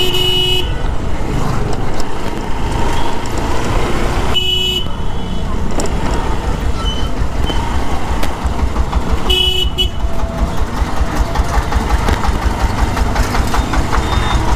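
Honda SP Shine 125 single-cylinder motorcycle running on the move, a steady low rumble of engine and wind noise. A vehicle horn gives three short honks, one at the start, one about four and a half seconds in and one about nine and a half seconds in.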